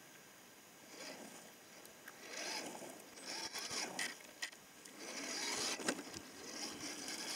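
Electric RC rock crawler climbing a loose gravel slope: its motor and gears whine in swells as the throttle comes and goes, with tyres scraping over the dirt and small stones clicking.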